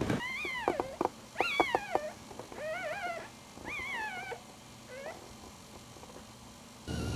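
One-week-old Maltese puppy crying: about five short, high whining squeals, each rising and then falling in pitch, over the first five seconds.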